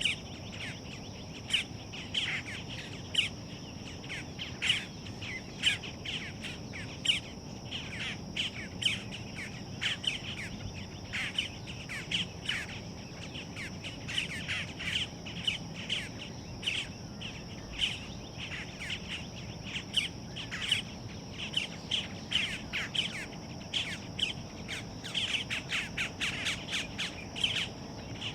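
Boat-tailed grackle fledglings calling over and over in short, rapid chips, several a second, begging to be fed. A steady high buzz runs underneath.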